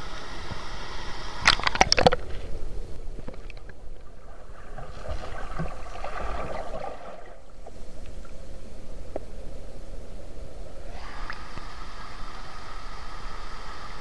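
Water rushing over a small rocky waterfall into a pool. About two seconds in comes a brief clatter of knocks, then the sound turns muffled and gurgling, as heard underwater, and the open rushing returns near the end.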